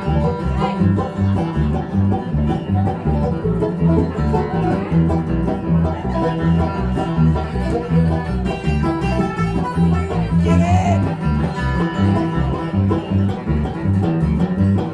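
Live bluegrass band playing an instrumental break between verses: fast banjo and guitar picking over a steady, alternating bass line, with no singing.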